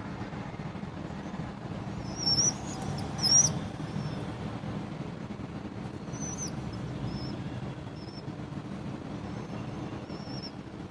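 Birds chirping: sharp high chirps about two and three seconds in and again around six seconds, then a few fainter short peeps later, over a steady low background hum.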